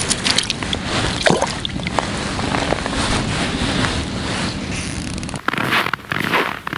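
Wind buffeting the microphone on open ice, a loud steady rumble with a few sharp clicks and knocks of handling. About five seconds in it changes abruptly to a gustier noise with short gaps.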